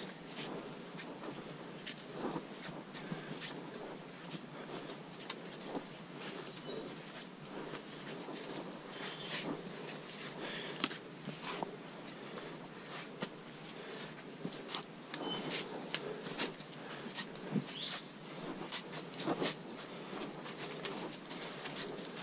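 Hikers' footsteps on a muddy trail with rustling of clothing and brushing plants: irregular soft steps and rustles over a steady buzz of forest insects. A few short high chirps come about nine and eighteen seconds in.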